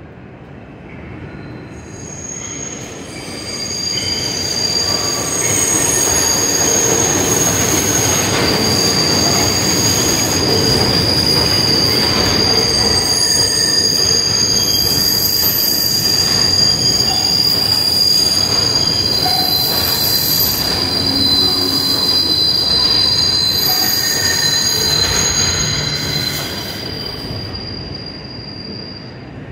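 New York City Subway train on the elevated IRT White Plains Road Line, its steel wheels squealing in several high steady tones over the rumble of the cars. The sound builds over the first few seconds, stays loud for about twenty seconds, and fades near the end.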